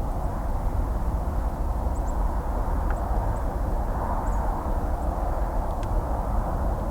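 Steady rumble and hiss of distant highway traffic, an even wash of tyre and engine noise with no single vehicle standing out. A few faint, short high chirps sound over it.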